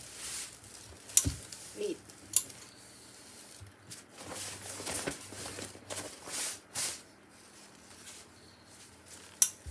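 Fabric rustling and swishing as hands spread and smooth large pieces of lining fabric on an ironing table. A few sharp clicks and knocks come through, the loudest near the end.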